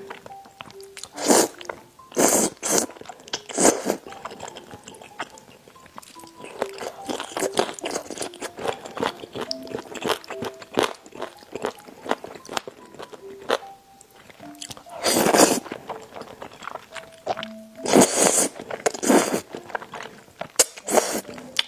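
Close-miked eating sounds: chewing and crunching of food, with several short, loud bursts near the start and again in the last third. Light background music with a simple melody runs underneath.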